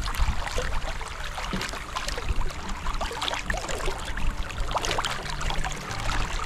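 Water rushing and splashing along the hull of a small sailing canoe yawl under way, with many small crackling splashes and gurgles.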